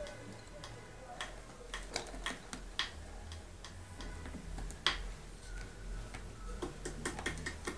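Kittens' claws and paws tapping and scratching at a carpeted scratching board and on a tile floor during play: irregular light clicks, thicker near the end.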